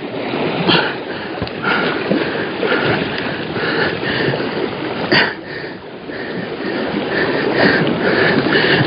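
Spinning reel being cranked against a large hooked fish on a bent jigging rod, its winding noise coming in short regular bursts about twice a second, with a couple of sharp clicks.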